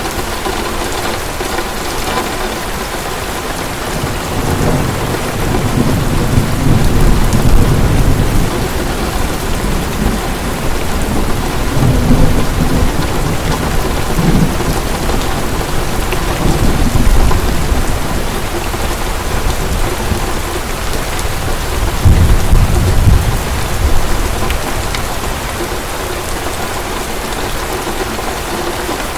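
Heavy rain falling steadily, with rolling thunder rumbling low several times, loudest around a third of the way in and again about three quarters through.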